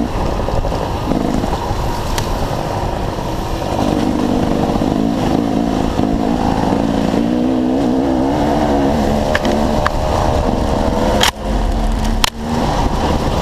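Dirt bike engines running and revving, the pitch rising and falling as the throttle opens and closes. Two short sharp knocks about a second apart near the end.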